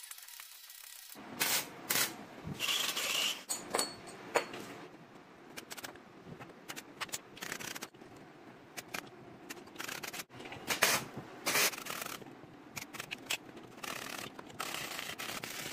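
Electric arc welding crackling in short, irregular bursts, as tack welds are laid on a square-tube buggy frame.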